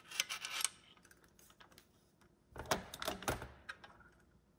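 Small metallic clicks of rifle parts being handled as the spring cap is pressed into the rear of an AR buffer tube, then a cluster of louder knocks and clacks about two and a half to three and a half seconds in as the rifle is set down on a stainless-steel table.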